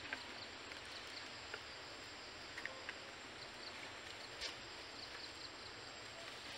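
Faint outdoor forest ambience: a steady hiss with insects chirping, short high chirps repeating in runs, and a few scattered soft clicks.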